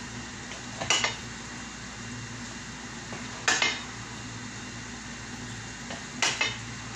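Metal cooking utensil clinking against a metal cooking pot in three short bursts, each of one or two quick strikes, about every two and a half seconds.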